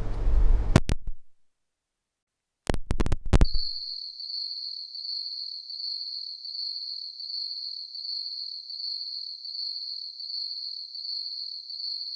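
Low handling rumble that cuts out to dead silence, a few sharp clicks as the audio switches to the other microphone, then a steady chirring of crickets, a high, evenly pulsing trill.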